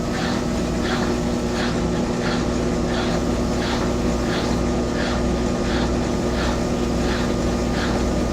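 Brastemp Active 11 kg washing machine running with a steady motor hum, overlaid by a regular scraping stroke about three times a second, the strange noise the machine is making.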